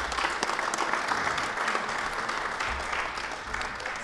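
A crowd applauding, a dense patter of many hands clapping that thins out near the end.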